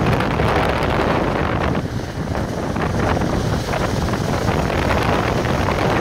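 Strong wind buffeting the microphone, a loud, gusty rush with no let-up.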